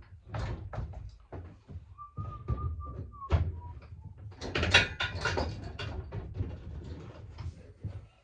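Irregular metal knocks and clunks from an Alaskan chainsaw mill and its mounted chainsaw being handled and adjusted, the loudest cluster about halfway through. A brief high steady tone sounds about two seconds in.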